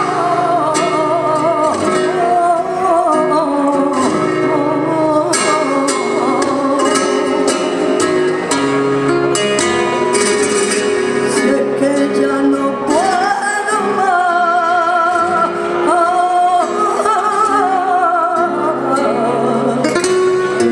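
A flamenco taranto: a singer's wavering, heavily ornamented cante over flamenco guitar accompaniment, with sharp percussive taps scattered through it.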